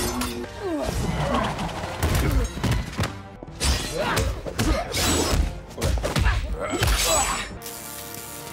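A film fight-scene soundtrack: music under a rapid run of punches, metal blade clashes and shattering impacts, with shouts and grunts. It eases off to a quieter stretch near the end.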